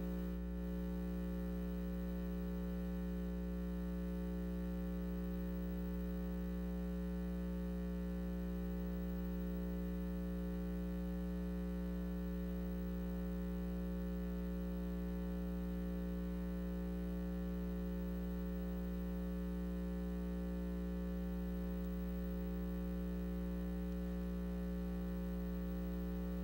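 Steady electrical hum with several fixed pitches, unchanging throughout.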